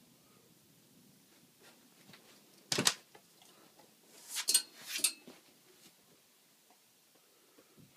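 A treeing walker coonhound puppy's front paws hitting a wood-panelled wall. There is a sharp knock about three seconds in, then two short rasping scrapes a second and a half later.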